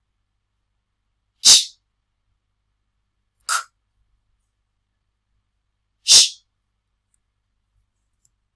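A voice making three short, breathy consonant sounds about two seconds apart, the 'ch', 'k' and 'sh' sounds that the letters CH can spell; the middle one is softer and lower.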